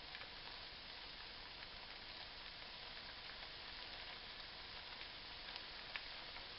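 Stir-fry vegetables sizzling softly in a hot pan of oil, butter and freshly added teriyaki sauce, a steady hiss with a few faint crackles.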